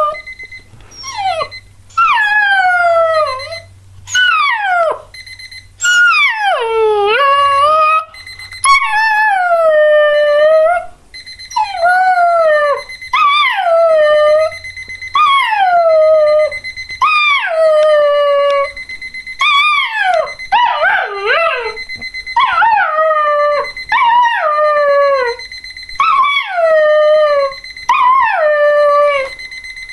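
Border collie puppy howling over and over, about fifteen howls of one to two seconds each, every one sliding down in pitch. Under the howls an alarm clock rings with a steady high electronic tone.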